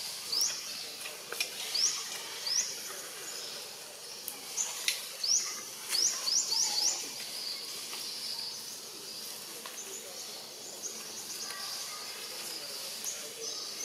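Forest ambience: a bird giving short, sharp, high chirps one at a time, with a quick run of four about six seconds in and fainter calls after that, over a steady high hiss.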